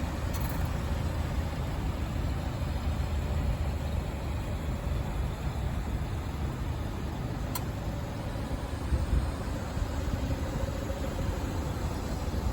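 Mazda NC Roadster (MX-5) four-cylinder engine idling steadily, with a gritty, grinding abnormal noise. The owner cannot place its source and suspects the air-conditioning compressor, timing belt or chain, or water pump.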